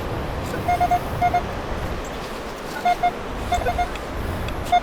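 Handheld metal-detecting pinpointer beeping in short runs of one steady-pitched tone, the beeps coming quicker near the end as it closes in on a buried coin, over a steady background rush.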